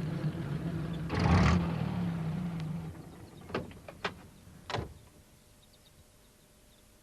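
Van engine running and dying away about three seconds in, with a short noisy whoosh about a second in. Three short knocks follow, the kind made by a van door.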